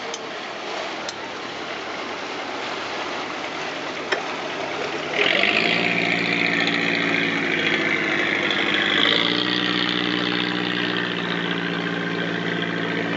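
Boat engine with water wash. About five seconds in the engine comes in suddenly louder, a steady drone, and its pitch shifts up slightly about four seconds later.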